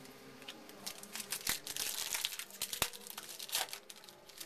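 A trading-card pack's foil wrapper being torn open and crinkled by hand: a run of crackling and sharp crinkles lasting about three seconds.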